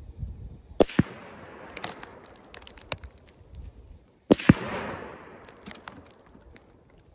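Two loud rifle shots from a PSL-54C (7.62×54R), about three and a half seconds apart. Each is a sharp crack, a second bang a moment later, and a long rolling echo, with scattered light clicks between them.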